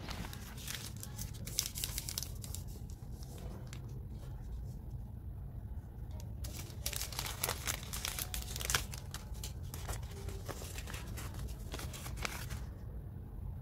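Candy wrappers and a chocolate bar's outer wrapper and foil being crinkled and torn open by hand. The crackling comes in two spells, with a quieter stretch between them.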